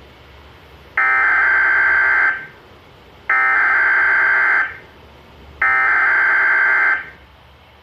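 Emergency Alert System SAME header: three identical bursts of harsh, buzzing digital data tones, each about a second and a half long with about a second between them. This is the data code that opens a required weekly test alert on weather radio.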